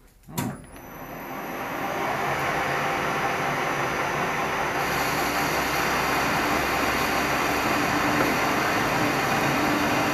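Metal lathe starting up with a click, the chuck spinning up to speed over about two seconds, then running steadily while a turning tool cuts down a steel bar held between the chuck and a tailstock live centre.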